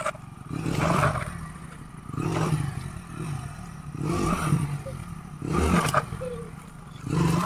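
A Hero commuter motorcycle's small single-cylinder four-stroke engine running, revved up in short bursts about five times over a steady idle.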